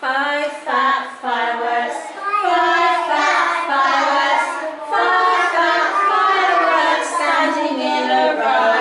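A group of young children singing a song about fireworks together, starting suddenly.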